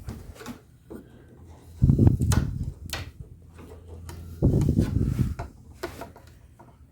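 Nailed wooden trim being pried off the edge of an old desk: two spells of wood scraping and knocking, about two seconds in and again about four and a half seconds in, with a few sharp clicks as the strip works loose from its nails.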